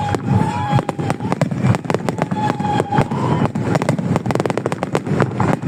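Fireworks display going off: a string of sharp bangs over low booming, with a thin whistling tone through the first three seconds and a dense rapid crackling in the last two seconds.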